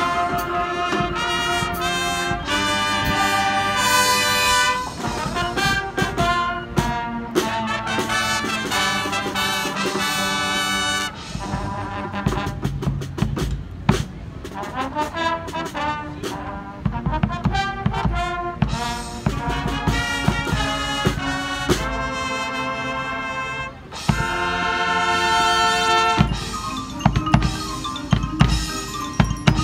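Live marching band playing: brass chords over drums and front-ensemble percussion such as marimbas, with a choppier, quieter passage in the middle before the full band comes back louder near the end.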